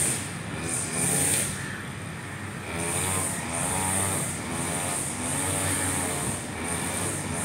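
Husqvarna 542RBS backpack brush cutter's two-stroke engine running at high revs while its 2.2 mm round nylon line whirs through short grass. The engine pitch and the line's hiss swell and dip about once a second.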